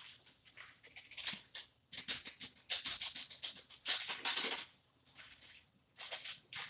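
Kitchen handling noises at the counter: short hissy rustling bursts, about six of them, spaced roughly a second apart.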